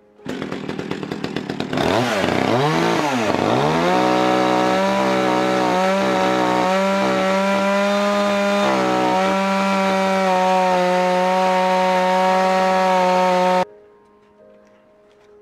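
Cordless electric chainsaw cutting into a log. It starts with a stuttering whine and dips deeply in pitch twice as the chain bites into the wood. It then runs with a steady whine under load, with a few brief dips, and cuts off suddenly near the end.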